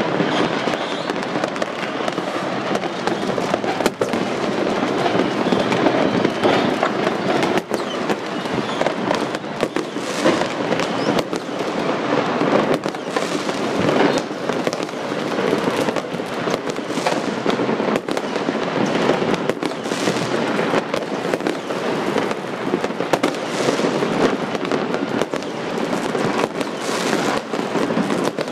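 Fireworks and firecrackers going off all over a city at once: a dense, unbroken din of crackling with frequent sharp bangs on top.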